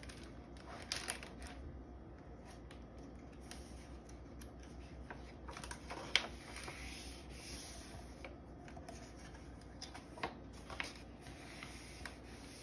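Pages of a hardcover picture book being turned and smoothed flat by hand: soft paper rustling, with a few sharper page flicks and taps about a second in, around six seconds, and around ten to eleven seconds.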